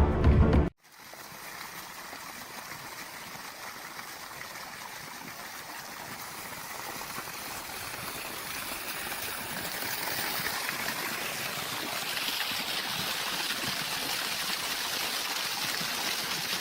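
Steady rush of flowing water, like a stream, slowly growing louder. A music track cuts off just under a second in.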